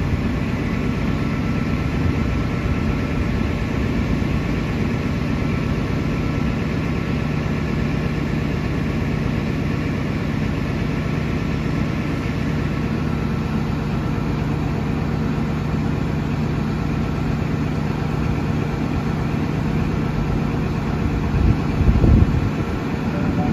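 Diesel engine of an XPT power car idling steadily with a low, even hum. A few louder thumps come near the end.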